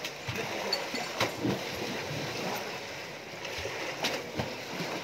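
Water splashing and sloshing as an Asian elephant moves about in a bathing pool, over the steady run of water pouring in from a hose, with a few louder splashes.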